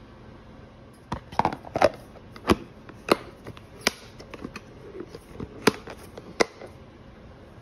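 Lid of a clear plastic food-storage container being pressed down and snapped shut, a string of about a dozen sharp plastic clicks and snaps starting about a second in and stopping near the end.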